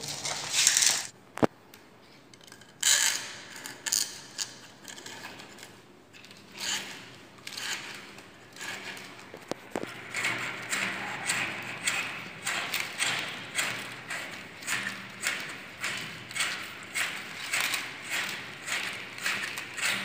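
Fish tape being pushed by hand into an electrical conduit, scraping and rasping as it is fed in. It goes in repeated pushes that settle into a regular rhythm of about three every two seconds in the second half.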